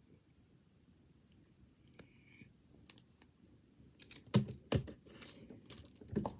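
Hands handling the box contents: a few faint clicks, then from about four seconds in a cluster of sharp clicks followed by rustling of packaging.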